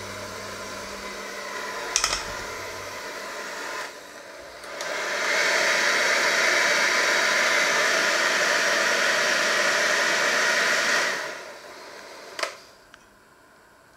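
Electric hand mixer running with its beaters in a stainless steel bowl. It runs steadily and much louder from about five seconds in to about eleven, then winds down, with a sharp click shortly before it goes quiet.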